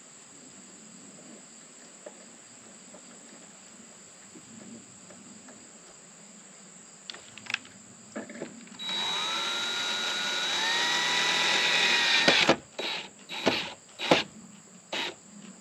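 Craftsman cordless drill driving a mounting screw into wood. A loud motor whine starts about nine seconds in and rises in pitch partway through. It stops after about four seconds, then comes a few short trigger bursts as the screw is run down. Crickets chirr steadily in the background.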